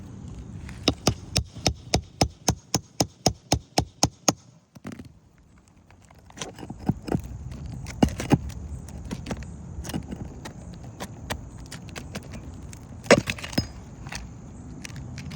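A roof snake working under an asphalt architectural shingle to pull its nails: a quick, even run of about a dozen and a half sharp taps, roughly four or five a second. After a short lull come irregular clicks and scrapes of tool and shingle, with one louder snap near the end.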